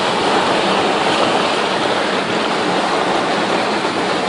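Fast-flowing floodwater rushing steadily around a stranded car, heard from inside the flooded cabin, with water still pouring in.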